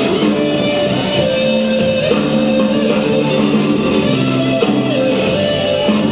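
Guitar-led music: a melody of held notes that slide from one pitch to the next, over a steady lower accompaniment.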